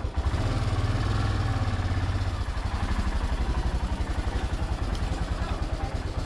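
Royal Enfield Himalayan's 411 cc single-cylinder engine running as the bike is ridden slowly, a steady low pulsing beat.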